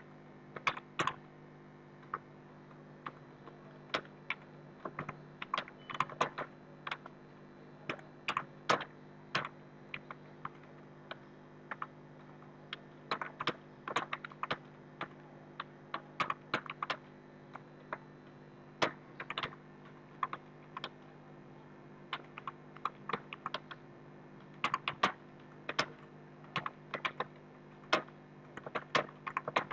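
Computer keyboard being typed on, keystrokes clicking in irregular runs with short pauses, over a steady low electrical hum.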